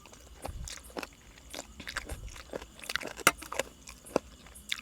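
Close-miked chewing and biting of a spicy Thai glass-noodle and seafood salad: irregular wet clicks and crunches.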